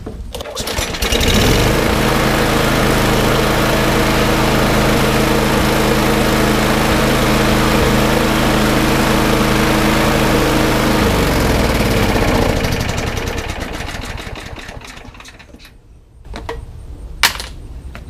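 Craftsman push mower's single-cylinder engine starts with a pull about a second in and runs at a steady speed with its air filter off. About eleven seconds in, once the soaked air filter is fitted, the engine slows and dies: the filter is choking it and needs replacing.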